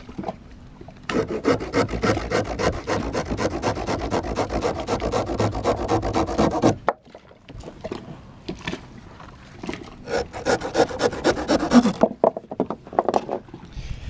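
Small hand saw cutting through a stalk of sugarcane with rapid back-and-forth strokes, in two bouts: from about a second in to about seven seconds, then again from about eight and a half to twelve seconds.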